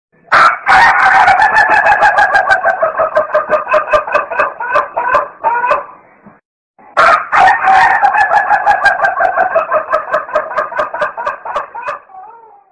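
Chickens calling loudly in two long bouts of rapid, evenly pulsed calls, each lasting about five seconds, with a short break of silence in between.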